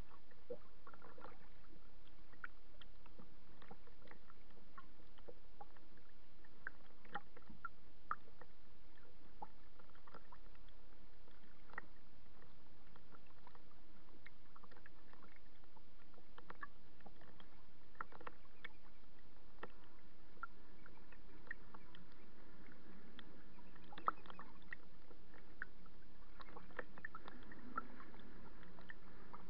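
Small waves lapping and splashing against a kayak's hull in irregular little slaps, over a steady background hiss.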